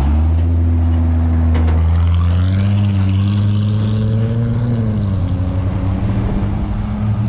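2014 Jeep Grand Cherokee exhaust with valved mufflers, valves open and resonators deleted, passing close by and pulling away with a deep, loud, steady exhaust note. Its pitch rises a little about three seconds in and drops back about five seconds in.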